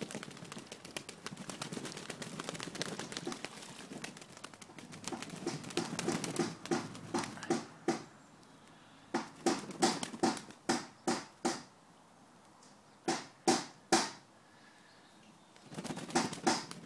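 Pigeons bathing in a shallow tray of water, beating their wings to splash. A dense spell of splashing and fluttering gives way to short, sharp splashes in quick runs of several.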